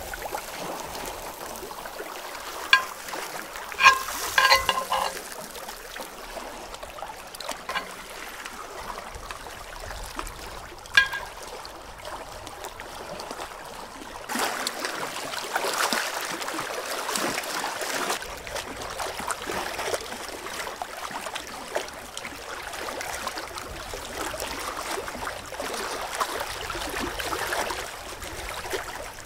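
Loch water lapping and trickling against a rocky shore, with a few sharp metallic clinks of steel tongs against a wooden board, most of them a few seconds in and one more about 11 s in. From about halfway the hiss of water grows louder.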